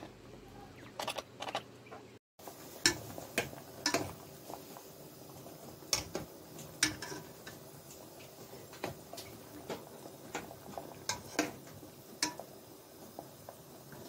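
A metal spoon clinking and knocking irregularly against an aluminium pot while stirring boiling potatoes. The sound cuts out briefly about two seconds in.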